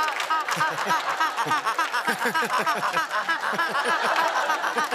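Studio audience laughing loudly, many voices overlapping in a steady run of short bursts, with performers on stage laughing along.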